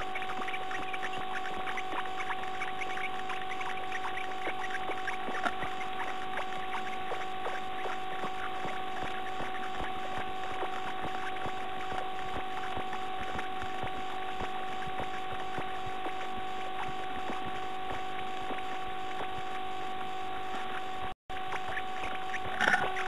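Steady electrical hum and hiss from a nest-box camera's microphone, with faint scratching and rustling as the nesting bird shifts and works on the nest. The sound cuts out for a moment near the end, followed by louder scuffing as the bird climbs toward the entrance.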